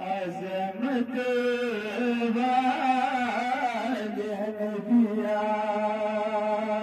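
A man singing a naat, an Urdu/Kashmiri devotional hymn in praise of the Prophet, in one long melismatic phrase over a steady drone. The phrase fades away near the end.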